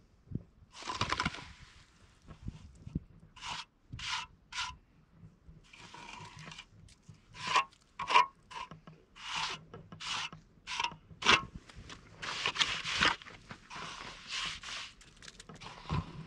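A series of rubbing strokes, about fifteen at an uneven pace, each lasting from a fraction of a second to about a second, with longer ones near the end.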